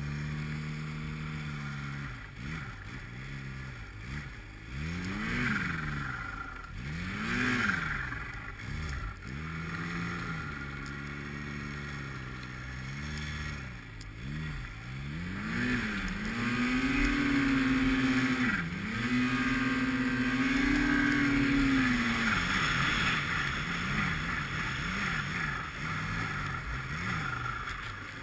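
240-horsepower Arctic Cat snowmobile engine revving up and down again and again as the sled carves through deep powder, then held at high revs for several seconds with one short dip before easing off near the end. A hiss of wind and spraying snow runs under it.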